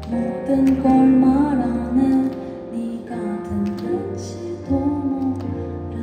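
Live music: a slow pop song played on stage with guitar, with a soft female voice carrying the melody.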